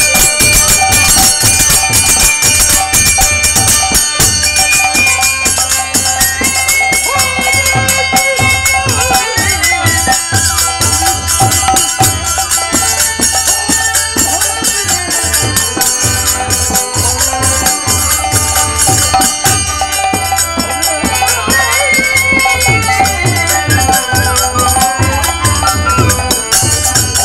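Kirtan ensemble playing: a hand drum beating a fast, dense rhythm under clashing hand cymbals, with a steady held note and a melody line rising and falling above.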